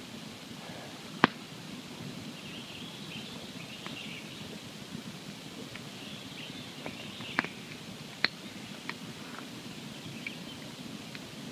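Wood campfire burning with a steady low hiss and scattered sharp pops, the loudest about a second in and a few more between seven and nine seconds.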